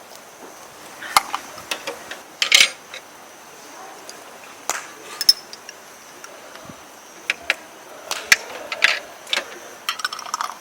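Scattered light clicks and clinks of utensils against dishes and cookware during a meal, some single and some in quick little runs.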